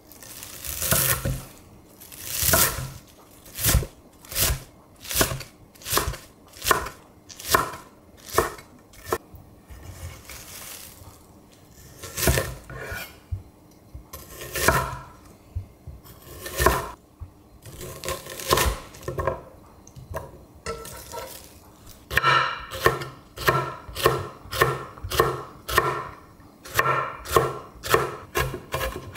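Chef's knife chopping vegetables on a wooden cutting board, each stroke a sharp knock of the blade on the wood: first garlic chives and an onion with spaced strokes, then from about three-quarters of the way in a quicker, even run of about three strokes a second as red chili peppers are minced.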